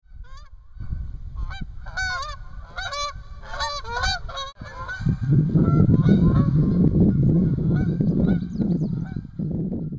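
Geese honking, a quick run of repeated rising-and-falling calls. From about five seconds in, a louder low rushing noise takes over, with a few fainter calls still heard above it.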